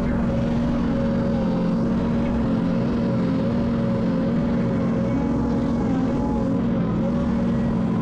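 Diesel engine of heavy earth-moving equipment running steadily at an even pitch.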